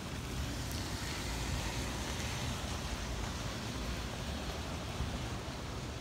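Steady rush of hurricane wind and rain, with gusts buffeting the microphone in a low, fluttering rumble.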